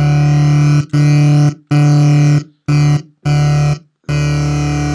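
Synthesizer bass note at one low pitch, played six times as short held notes. It runs through a chain of EQ Eight notch filters that carve dips into its upper tones, the start of a formant filter.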